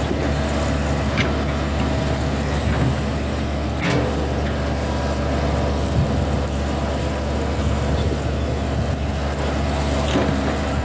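Hitachi excavator's diesel engine running steadily with a low hum, with a few short knocks about a second in, about four seconds in and near the end.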